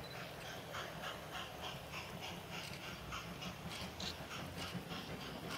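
Model steam locomotive running along the layout with a steady, rhythmic chuff of about five beats a second, over a low steady hum.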